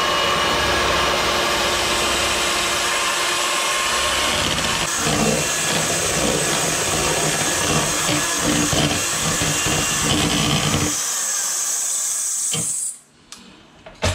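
Electric kitchen food processor motor running steadily, its sound changing about five seconds in, then switched off abruptly near the end.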